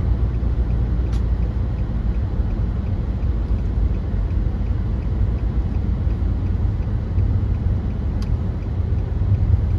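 Steady low rumble of a car in motion heard from inside the cabin: engine and tyre road noise. Two faint clicks, about a second in and near the end.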